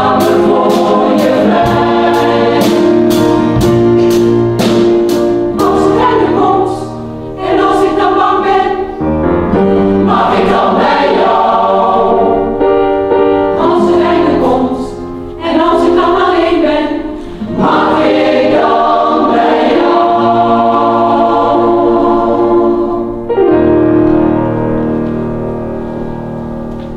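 Mixed choir of men's and women's voices singing a song in several phrases. Regular high ticks, about two a second, keep time for the first six seconds, and the song ends on a long held chord that fades away.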